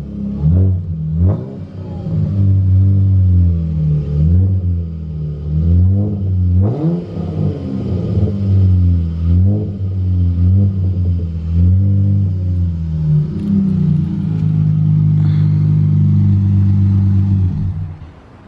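3.6-litre V6 of a 2015 Dodge Charger SXT through aftermarket Flowmaster mufflers, heard at the tailpipes: the engine is blipped again and again, each rev rising and falling quickly over the idle drone, then runs more steadily before cutting off abruptly near the end.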